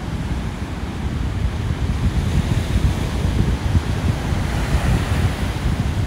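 Sea waves breaking and washing up the beach: a hiss that builds through the middle and eases off near the end, over a steady low rumble of wind on the microphone.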